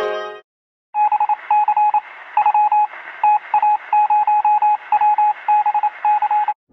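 Morse code beeps: a single tone keyed in short and long pulses over a hiss of radio static, starting about a second in.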